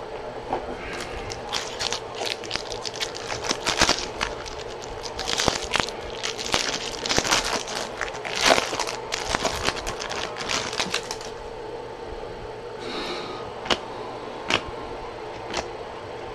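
Foil wrapper of a Topps Chrome jumbo trading-card pack crinkling and tearing as it is opened, a dense run of crackles lasting about ten seconds. A few separate clicks follow near the end.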